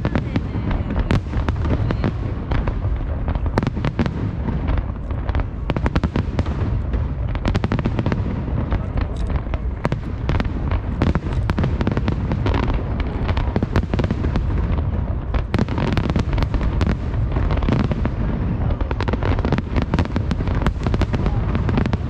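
A dense barrage of aerial fireworks shells bursting, many reports a second overlapping into a continuous low rumble with crackling.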